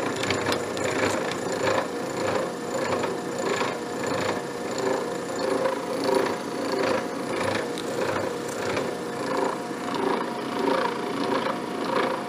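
Abene horizontal milling machine taking a cut with an arbor-mounted side-milling cutter in a steel broach bushing: a steady running hum with a cutting noise that pulses evenly about once every 0.7 seconds as the cutter turns.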